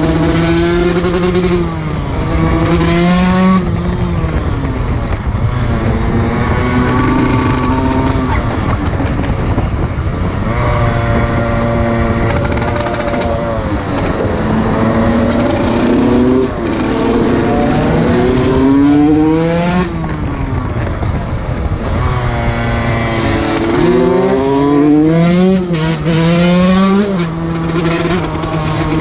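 125 cc two-stroke dirt bike engine being ridden hard, its pitch climbing and dropping back again and again as the throttle opens and closes through the gears.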